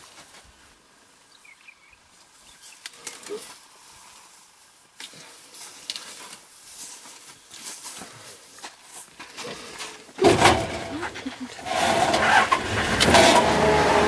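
Safari vehicle's engine, off during a quiet stretch, starts suddenly about ten seconds in and then runs loudly and steadily.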